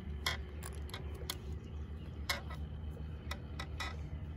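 Metal retaining ring clicking as it is squeezed together and worked into its groove around the outboard's water-pump base: about eight short, sharp clicks at irregular intervals, with a steady low rumble underneath.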